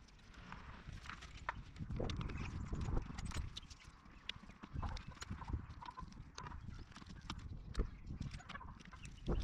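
A screwdriver and gloved hands working at the plastic foot of a VW Transporter roof rail as its mounting bolts are tightened: irregular clicks, taps and knocks against the rail and the van's steel roof, with a few louder knocks.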